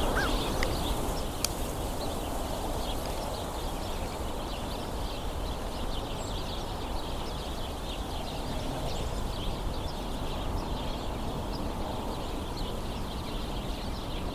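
A flock of house sparrows chattering and squabbling, with many short overlapping chirps throughout, over a steady low background noise.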